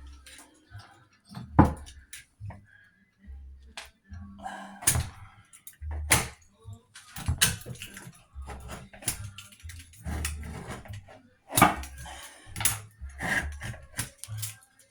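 Irregular knocks, scrapes and low thumps of a tool prying and working at hardened old caulk to break a bathroom sink top loose.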